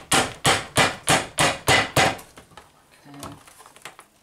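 Metal beaters of a hand mixer knocked against the rim of a mixing bowl to shake off thick cake batter: about eight sharp knocks in quick succession over the first two seconds, then only a faint clatter.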